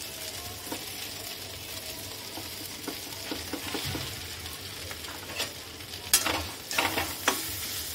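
Hot mustard oil sizzling steadily in a metal kadhai as ground chana dal paste goes in. Near the end a steel spatula scrapes and knocks against the pan several times as the paste is stirred.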